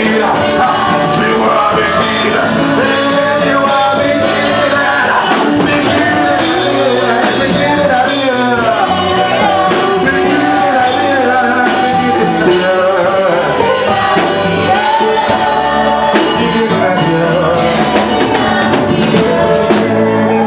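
Live gospel worship music: a band with drum kit playing, with singing over it.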